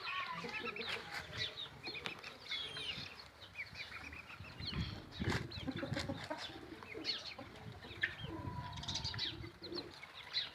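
Chickens calling: a busy run of short, high chirps and clucks, with a few sharp clicks in between.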